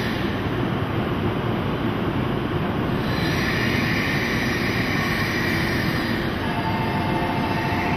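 E2 series Shinkansen train running slowly along the station platform: a steady rumble and rush of wheels and running gear. A steady two-note whine comes in a little after six seconds.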